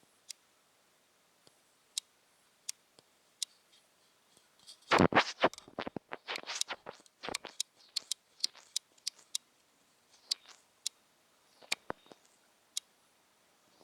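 Sharp, irregular single clicks recorded in a Sony NEX-5N's movie audio, the camera's known clicking fault, coming every half second to a second or so. About five seconds in, a louder, denser run of knocks and rustling lasts several seconds before the lone clicks return.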